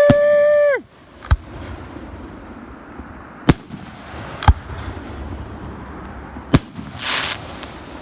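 Fireworks display: single sharp bangs of bursting shells, about five of them spaced a second or more apart, with a short crackling hiss about seven seconds in. A loud shouted cheer comes at the very start, over faint steady insect chirring.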